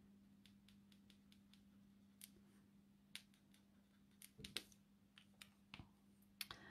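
Near silence: faint scattered clicks and taps of a Copic alcohol marker being worked on paper and lifted away, over a low steady hum.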